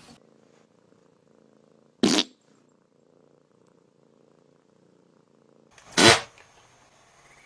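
A cat purring faintly and steadily, broken twice by a short, loud burst of noise, once about two seconds in and again, slightly longer, about six seconds in.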